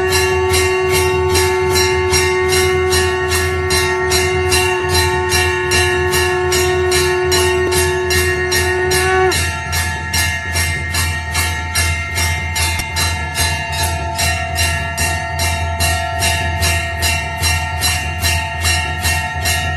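Temple bells (ghanta) rung rapidly and continuously during an aarti, about three strokes a second, with a steady ringing. A long held, steady pitched tone sounds over the bells and stops about nine seconds in.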